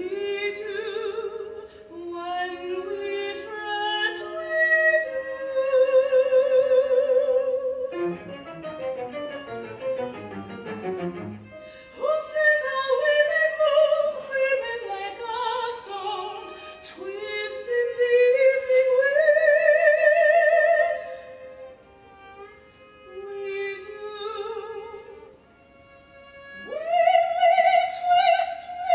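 Soprano singing an operatic art song with wide vibrato on long held notes, accompanied by a string quartet. From about eight to twelve seconds in, a run of overlapping falling notes takes over before the voice returns.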